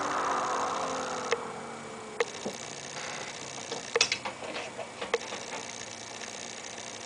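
The VQ35HR V6's note through an Amuse titanium muffler slides down in pitch and fades away in the first couple of seconds. Scattered sharp ticks and clicks follow at irregular intervals, with a brief cluster about four seconds in.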